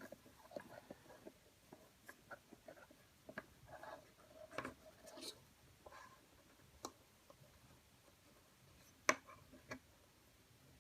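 Faint rustling and rubbing of paracord being worked by hand, pulled through a loop and snugged into a Solomon bar weave, with scattered small clicks and one sharper click near the end.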